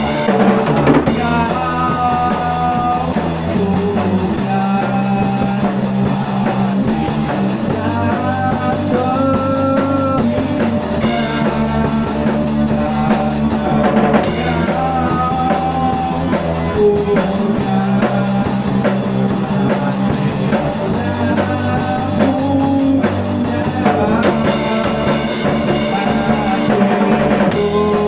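A band playing a rock song in rehearsal: a drum kit keeping a steady beat under bass and electric guitar, with a melody of held notes that bend in pitch.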